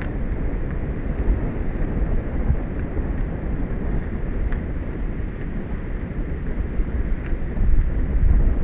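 Wind buffeting an outdoor microphone: a steady low rumble with a few faint ticks.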